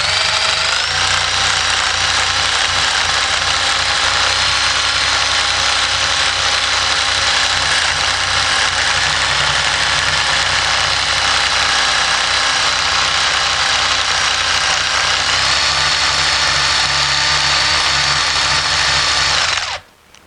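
Electric 1/4-inch driver spinning a rubber decal-eraser wheel against truck paint, grinding off old double-sided foam adhesive: a steady motor whine over a rough scrubbing noise. The pitch rises slightly about three-quarters through, and the sound cuts off just before the end.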